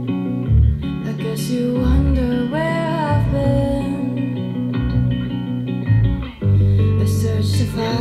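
A song with guitar, deep bass notes and a singing voice, played through a Bang & Olufsen Beoplay A9 Mk4 wireless speaker. The music breaks off briefly a little after six seconds in.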